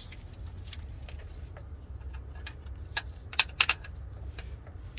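Plastic wire separator clips and corrugated wire loom on a truck wiring harness clicking and rustling as they are handled and pressed into place, with a few sharp snaps about three and a half seconds in.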